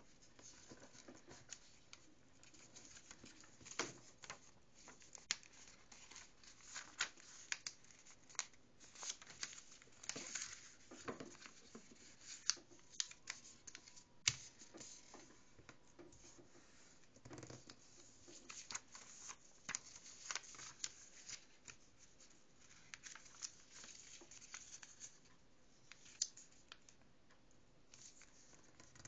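A sheet of paper being folded and creased by hand on a wooden tabletop: faint, irregular rustling and crinkling, with crisp clicks and scrapes as fingers press the folds flat.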